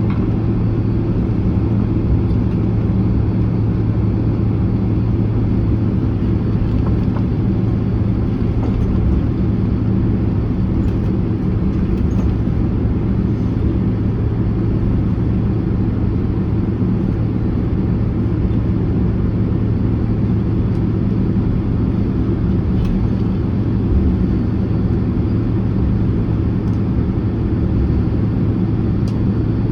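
Inside the cabin of a Boeing 767-300ER taxiing after landing: the steady low rumble and hum of the engines at idle and the airframe rolling, with a few faint clicks.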